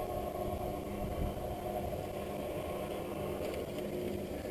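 FAAC tubular motor inside a roller shutter running with a steady hum as it winds the aluminium slats down to close the shutter, while its bottom limit is being set.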